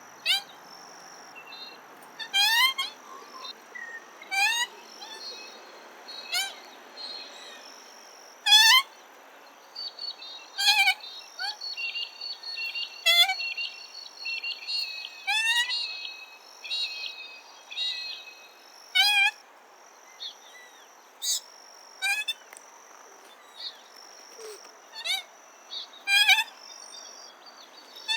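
Common moorhen giving short, sharp, rising call notes, repeated every second or two. A steady high insect hum runs beneath, and a stretch of higher twittering comes around the middle.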